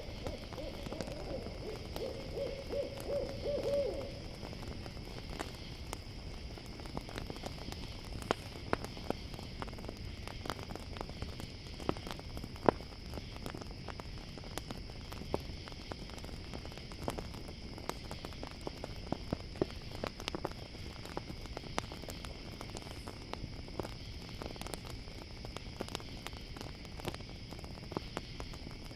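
An owl hoots in a quick series of short notes during the first few seconds. Throughout, crickets give a steady high chorus and a campfire crackles with scattered sharp pops.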